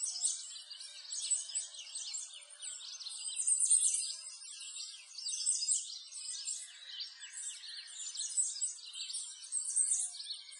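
A dense chorus of small birds chirping and twittering, many high calls overlapping without a break.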